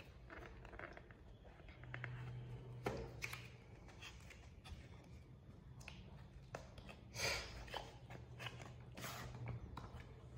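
Cardboard phone packaging being handled: paper flaps rustling and the white inner box scraping against its printed cardboard sleeve as it slides out, in scattered faint rustles and scrapes.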